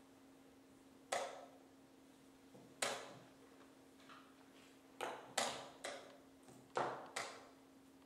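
Wooden chess pieces set down on the board and the chess clock's buttons pressed as blitz moves are played: seven sharp knocks, some in quick pairs, over a faint steady hum.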